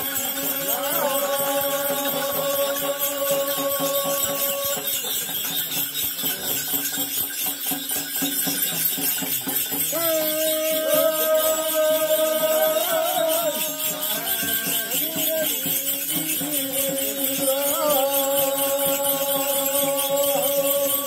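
Ritual bells of a dhami's shamanic dance jangling in a fast, continuous shake, with three long held pitched notes, each about four seconds, sounding over them.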